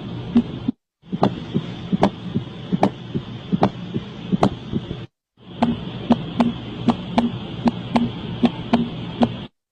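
Heart sounds recorded through a stethoscope, played as separate short recordings cut together, with a brief silence about a second in and another about five seconds in. Each heartbeat comes as sharp clicks over a steady hiss: beats in pairs a little under a second apart in the middle recording, and faster, closer-spaced clicks in the last.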